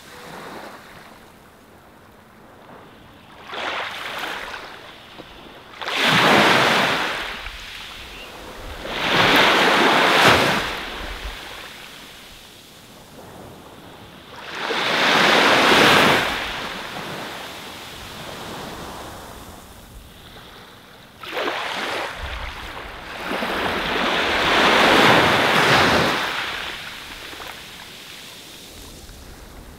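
Ocean surf: waves breaking and washing up the shore one after another, each surge swelling up and fading away every few seconds.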